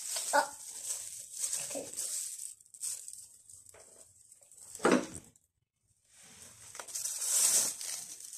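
Thin plastic crinkling and rustling as gloved hands handle the plastic-covered work surface, in irregular bursts, with one sharp thump about five seconds in.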